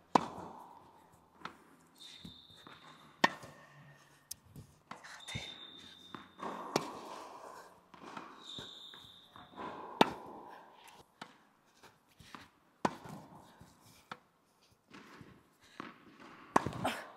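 Tennis balls struck by a racket about every three seconds, six sharp hits in all, with softer knocks of balls bouncing on the hard court between them and some echo after each hit.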